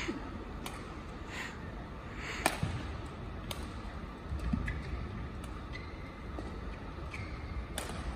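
Badminton rally: rackets striking the shuttlecock, sharp cracks about once a second, over the low steady background of a large indoor arena.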